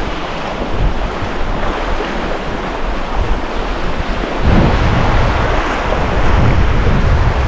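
Small waves breaking and washing over shallow sand, with wind buffeting the microphone, heavier from about halfway through.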